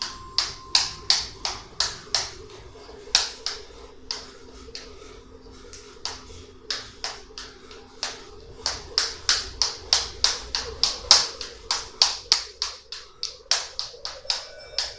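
Jump rope slapping a wooden floor on each turn during speed-step footwork, a quick even run of sharp clicks about three to four a second that thins out for a few seconds in the middle.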